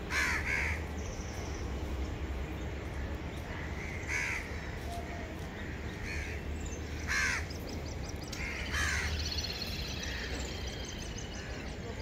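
Wild birds calling: a few loud calls spaced several seconds apart, with fainter high chirps from smaller birds between them. A steady low hum runs underneath.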